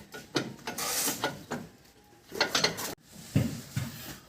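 Irregular mechanical clicking and clatter of tools and metal suspension parts being worked on, with short ratchet-like rattles.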